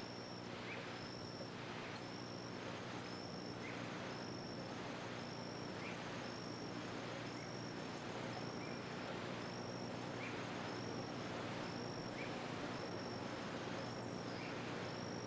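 An insect chirping about once a second, a short high note repeated steadily, over hiss and a steady low hum.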